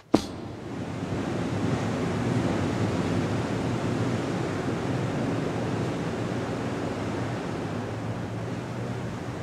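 A sharp click, then a steady rushing noise that runs on evenly, with no tone or rhythm in it.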